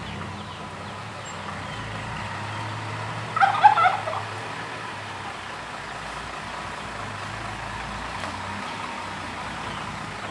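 Six-wheel dump truck's diesel engine running steadily at low speed as the loaded truck moves slowly. A brief chicken call cuts in about three and a half seconds in.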